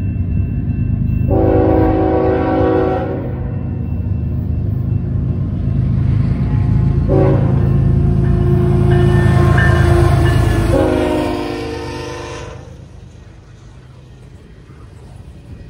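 A Canadian Pacific coal train's locomotive sounds its Nathan K5HL five-chime air horn in three blasts: one about a second in, then a longer one about seven seconds in that runs straight into a third. The low rumble of the diesel locomotive passing runs under the horn, and after the horn the coal cars roll by more quietly.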